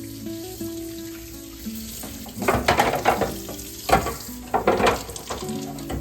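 Soft background music with held notes. From about two seconds in, irregular splashing and scrubbing noises come in from washing at a kitchen sink.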